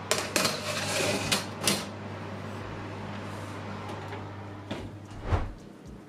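Metal baking tray and kitchen things handled: a quick run of clattering knocks in the first two seconds and a single knock a little after five seconds, over a steady low hum.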